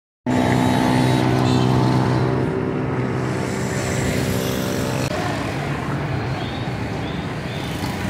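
A motor vehicle engine running steadily close by. About five seconds in it cuts to a general street traffic din.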